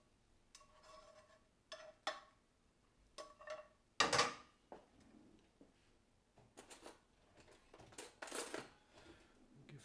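Spatula scraping and knocking against a frying pan, the pan ringing briefly with each knock, and the pan handled on a gas hob's grates with a louder clank about four seconds in, followed by a few more clatters.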